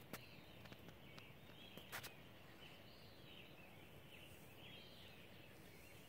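Faint dawn chorus of songbirds: short chirping phrases repeating over and over. A few sharp clicks come in the first two seconds.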